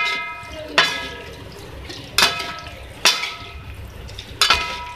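A cooking utensil knocking against a metal frying pan while macaroni is stirred in it, about five knocks a second or so apart, each leaving the pan ringing briefly.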